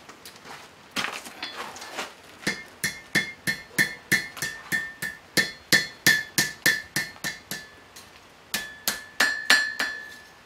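Hand hammer striking a red-hot steel blade over the horn of an anvil, bending a counter bend into it. There are a few lighter knocks, then steady blows at about three a second with the anvil ringing after each, a short pause, and a last run of ringing blows.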